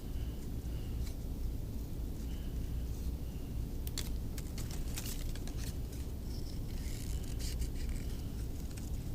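Scissors cutting paper, scattered snips and paper rustles over a steady low hum.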